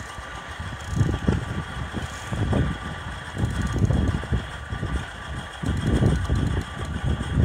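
Narrow-gauge steam locomotive moving off slowly, its exhaust giving slow, uneven chuffs about once a second.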